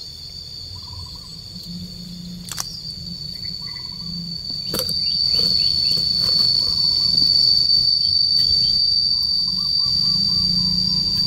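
A steady high-pitched drone of insects, growing louder about halfway through, with two sharp knocks a couple of seconds apart early on.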